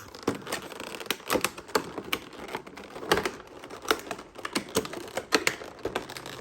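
Cardboard collection box and its packaging being handled as the lid is taken off: a run of irregular light clicks and taps.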